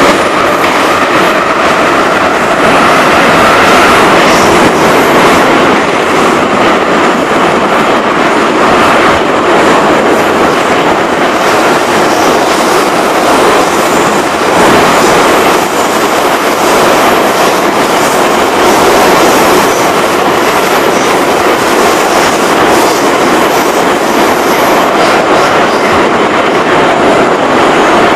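Soviet-built 81-717/714 metro train running at speed through a tunnel, heard from inside the car at the doors. A loud, steady roar of wheels on rail with a rhythmic clatter, and a whine that rises in pitch over the first few seconds.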